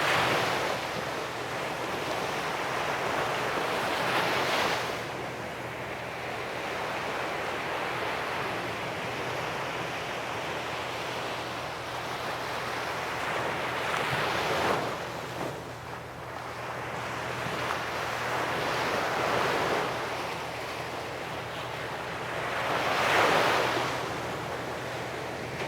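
Sea surf breaking on the shore: a continuous wash of waves, with waves cresting and breaking about 4 s in, about 15 s in, about 20 s in, and loudest about 23 s in.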